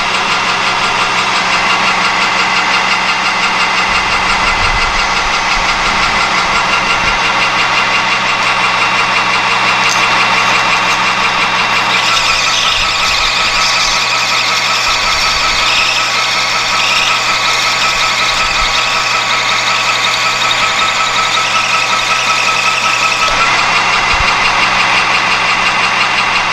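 Metal lathe running, its motor and gear train giving a steady whine with several tones. From about halfway through until near the end a higher hissing layer joins in as the tool cuts the turning rod.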